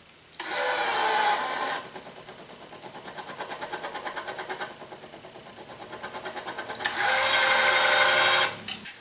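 Wise 2086 electronic tension head pulling a main string to tension. Its motor runs with a steady whine for about a second and a half, gives way to a quieter fast even pulsing while it holds the string, and then whines again for about a second and a half near the end.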